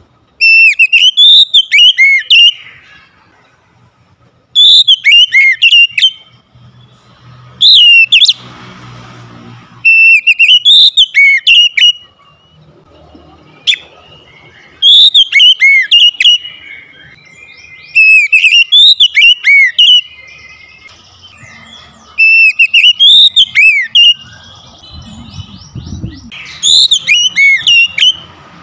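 Oriental magpie-robin singing: loud whistled phrases of sweeping notes that rise and fall, each about two seconds long, repeated every three to four seconds.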